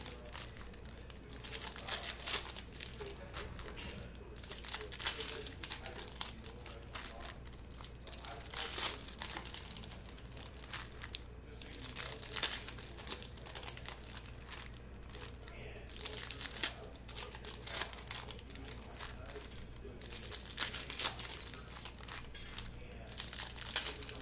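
Trading-card pack wrappers crinkling and tearing open in irregular bursts as packs are opened and cards handled, over a low steady hum.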